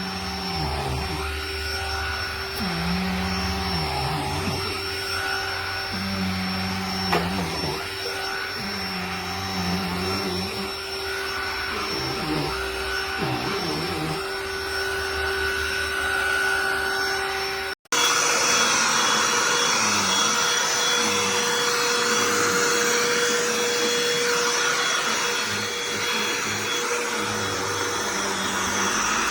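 Handheld vacuum cleaner motor running steadily with a whine. About two-thirds of the way through it cuts off abruptly, and vacuum running resumes at once with a different pitch.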